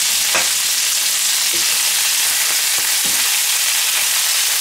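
Boerewors sausages frying in a pan, a steady sizzling hiss as they brown. A few light clicks come from a fork turning them against the pan.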